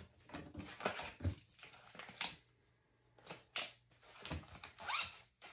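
Handling noise on a wooden tabletop: scattered rustles and a few light knocks as small items and a zippered fabric pencil pouch are moved and picked up.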